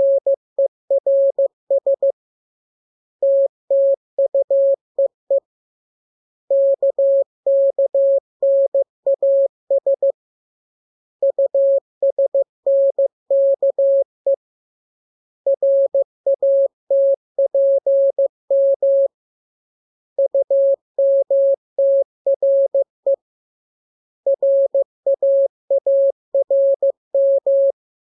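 Morse code practice signal: a single mid-pitched tone keyed on and off in dots and dashes, sent in groups of characters with a pause of about a second between groups.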